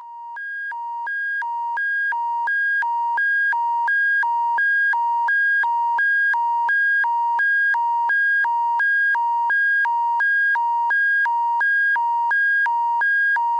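Electronic emergency-alert attention signal: two tones, one high and one low, alternating evenly a little over twice a second, fading in over the first few seconds and then holding steady.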